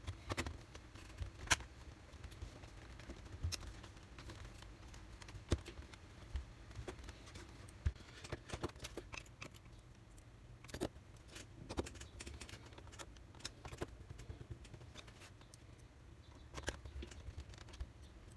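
Scattered small clicks and taps, irregularly spaced, of laptop parts and small tools being handled.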